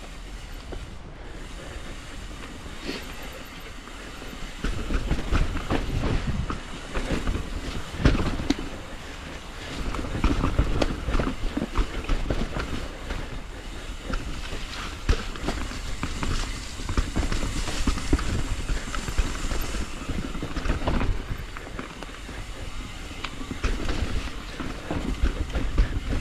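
Transition TransAM hardtail mountain bike rattling and clattering as it rides fast down a rough dirt trail. The tyres rumble over the ground and there are frequent knocks and rattles from the bike.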